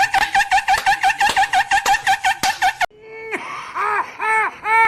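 Very high-pitched rapid giggling, about seven quick bursts a second, that cuts off abruptly about three seconds in. It is followed by a different, lower voice giving slow, evenly spaced rising-and-falling calls, about two a second.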